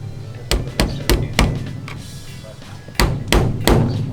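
Hammer blows on a car's sheet-metal body panel, knocking out a dent: two quick runs of four strikes each, about three a second, the first about half a second in and the second about three seconds in.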